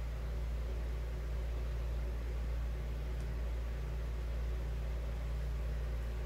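Steady low hum with a faint even hiss, unchanging throughout.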